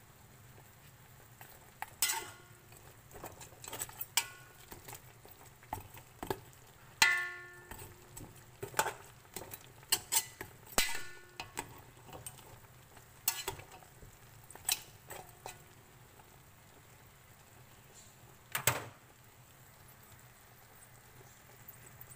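A metal cooking spoon knocks and scrapes against the inside of a stainless steel pot as pork pieces are stirred and turned. The sharp clinks come irregularly and ring briefly; they begin about two seconds in and stop a few seconds before the end.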